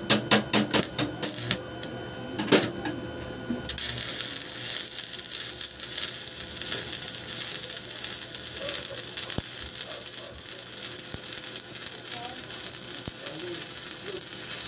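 Stick-welding arc from a YAMAPRO ARC-300A inverter welder set to about 250 amps, crackling and hissing steadily from about four seconds in as a large electrode burns along steel pipe. A rapid run of clicks comes in the first second or so.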